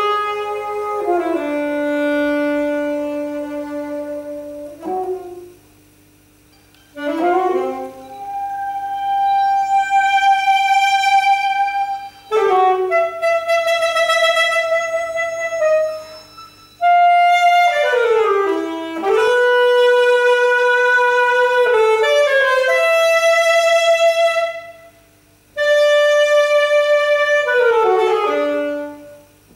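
Unaccompanied saxophone playing long held notes that bend and slide between pitches. It pauses for about two seconds some five seconds in, with shorter breaks between the later phrases.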